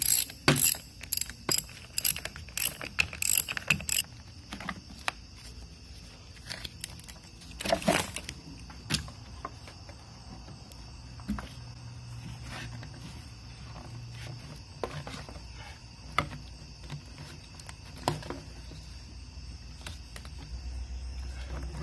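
Ratchet wrench clicking in quick strokes, about three a second, for the first four seconds as a car battery terminal is loosened, followed by scattered metal clicks and knocks of hand tools working on engine-bay fittings.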